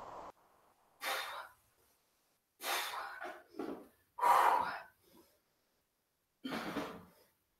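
A woman breathing hard in heavy exhales, about four breaths spaced a second or two apart, from the exertion of goblet squats with a dumbbell.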